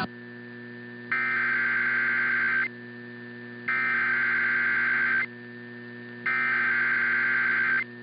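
Emergency Alert System SAME header: three bursts of digital data tone, each about a second and a half long and about a second apart, marking the start of a weather alert. A steady electrical mains hum runs underneath.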